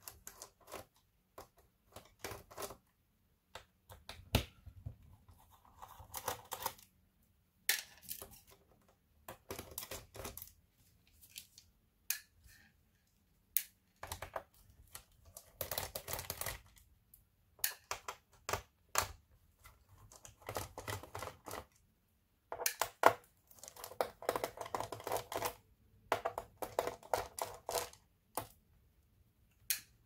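Irregular clicks, taps and short scrapes of a hand tool and fingers working at a laptop's plastic bottom case, with brief pauses between them.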